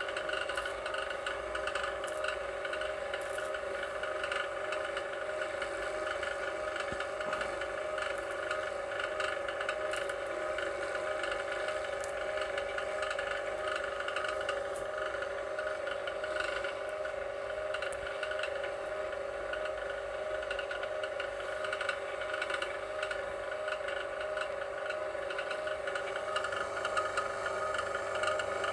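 VEVOR electric wire stripper running steadily, its motor and gears making an even mechanical whir with a few faint clicks.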